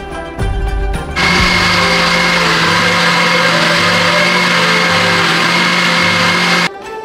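Countertop blender motor running at a steady speed, blending beetroot and herbs into a thick purée. It starts about a second in and cuts off sharply shortly before the end.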